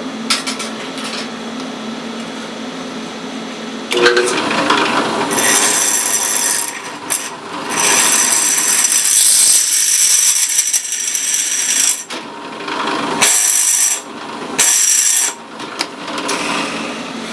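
Drill press running, then drilling out a hole in 1/8 in aluminium flat stock: the motor hums steadily, and from about four seconds in the bit cuts in several bouts with a high-pitched screech, breaking off briefly twice near the end.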